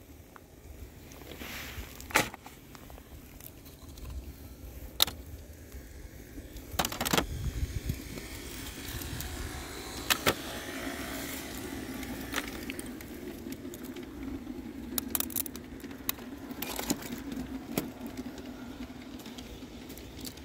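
Small plastic and wooden model-railway accessories being handled and dropped into a plastic bin: a scattering of sharp clacks and knocks. A steady low hum sets in about seven seconds in.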